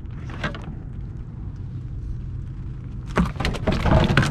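A flounder flopping against a kayak's plastic front hatch as hands push it into the hatch box: a quick run of thumps and knocks on the plastic starting about three seconds in, over a steady low rumble.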